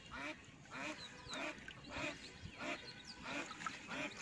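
Ducks quacking in a steady series of short calls, roughly two a second.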